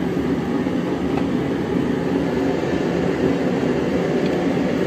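Steady low droning background noise, with a faint click about a second in.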